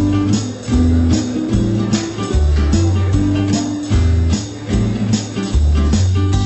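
Background music: a guitar track over a bass line and a steady beat.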